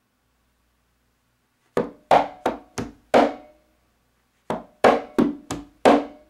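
Hand-played LP conga drum: the tip, slap, tip, heel, slap exercise, played as two phrases of about five quick strokes each with a short rest between them, the first starting a little under two seconds in.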